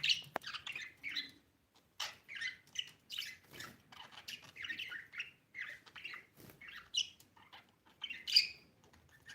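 Budgie (budgerigar) chirping: a run of short, high chirps in irregular clusters with brief pauses, and one louder call about eight seconds in.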